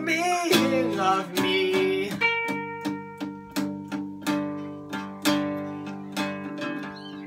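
Two guitars, an electric and an acoustic, strumming chords about twice a second, each chord left ringing. A voice sings a short line over the first couple of seconds.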